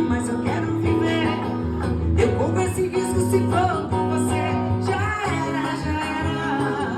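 Pagode music: a singer's voice over strummed guitar and a steady bass line.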